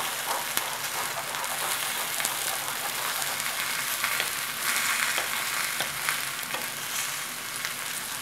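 Sweet cream sauce at a hard, rolling boil in a frying pan, giving a steady bubbling sizzle with fine crackles, while a metal spoon stirs through it.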